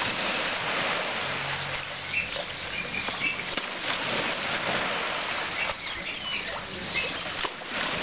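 Water washing and splashing over a sandy shore in a steady rush, with a few brief high notes over it.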